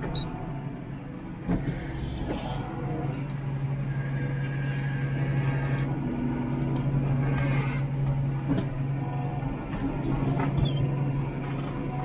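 New Holland T7 tractor engine running steadily under load, heard from inside the cab, with a few sharp clicks over it.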